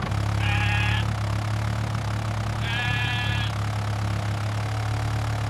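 Sheep bleating twice, short calls about two seconds apart, over a tractor engine running with a steady low hum.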